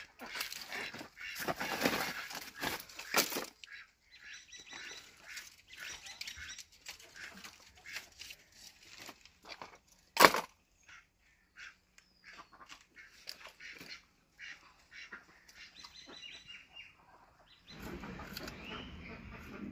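Dry sticks, bark and leaves rustling and clattering as a pile of firewood is rummaged through, with one sharp knock about ten seconds in. Ducks or geese call in the background.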